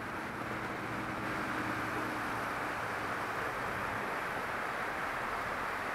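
Steady rush of shallow creek water running over a riffle, with a faint low hum that fades out about four seconds in.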